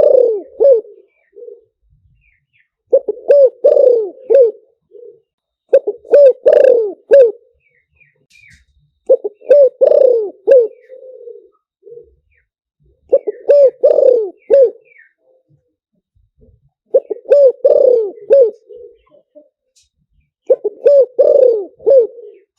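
Spotted dove cooing: a phrase of several low coos, repeated over and over about every three to four seconds with short silences between.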